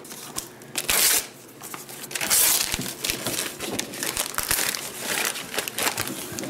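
Wrapping paper being torn off a gift box and crumpled by hand, with louder rips about a second in and around two and a half seconds in, then steady crinkling.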